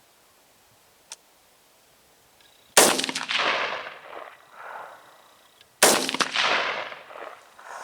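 Two AR-15 rifle shots with 40-grain V-Max varmint bullets, about three seconds apart, each followed by echoes rolling back for a second or two. A faint click comes about a second in.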